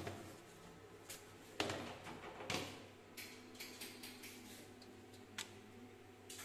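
Light kitchen handling sounds: a few short knocks and clatters, the loudest about two seconds in, as the lid of a plastic casserole is lifted and set back, over a faint steady hum.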